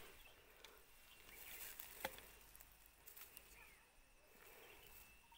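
Near silence: faint outdoor ambience with a thin steady high tone and a few soft clicks.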